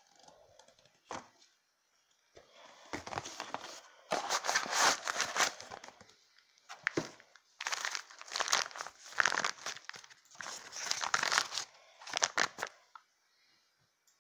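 Crinkling and crackling handling noise in a series of bursts a second or two long, from something being worked by hand.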